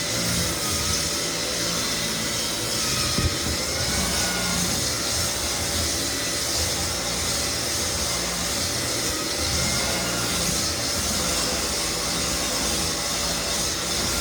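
Lagler Flip floor sander running steadily as it sands cupped white oak flooring level.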